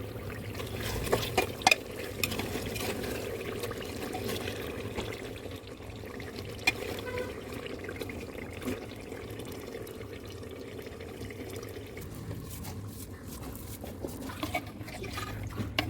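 Water running and sloshing, with a few sharp clinks of a utensil or vessel.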